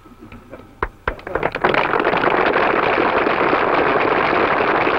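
Crowd applauding: a few scattered claps, then steady dense clapping from about a second and a half in.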